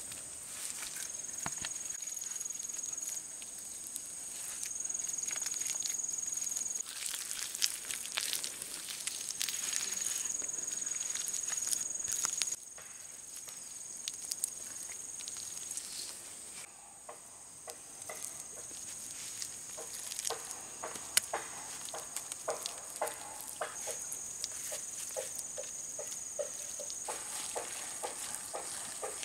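Wet mud being patted, pressed and smoothed by hand onto a bamboo dome frame: soft slaps, scrapes and small clicks, more frequent toward the end. Insects drone high and steady throughout, with a second high whine that cuts in and out several times.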